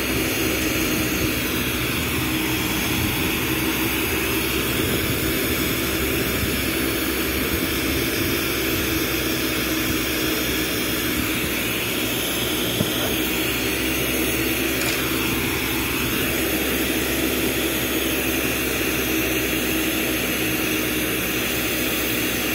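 Glassblowing bench torch burning with a steady roar and hiss, with a low hum underneath. One light click about 13 seconds in.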